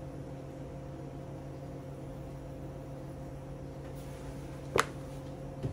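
Steady low hum of a running appliance or fan, with one sharp click about five seconds in and a fainter one just after.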